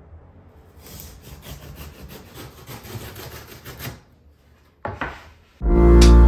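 Utility knife slicing along a cardboard box and cardboard rubbing and scraping as the box is opened, a rough scratchy noise lasting about four seconds. Music comes in loudly near the end.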